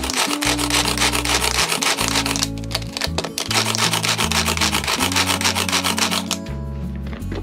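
Pull-cord manual food chopper mincing new onion: each pull of the cord spins the blades in a rapid clicking whirr, in repeated bursts that stop near the end.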